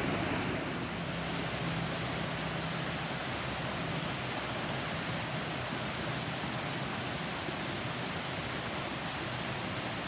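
Fast-flowing mountain creek rushing over rocks: a steady wash of water noise.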